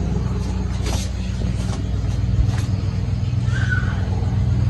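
Parrot Uncle Crestfield ceiling fan running, with a steady low motor hum and a few faint ticks.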